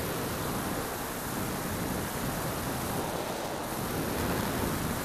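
Steady rush of airflow over an onboard camera's microphone on the GL-10 Greased Lightning tilt-wing drone in forward flight: an even, loud noise with no clear engine or propeller tone.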